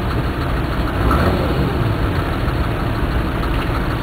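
Mercedes 4x4's engine idling steadily while the vehicle waits stationary at a rally start line, with a slight swell about a second in.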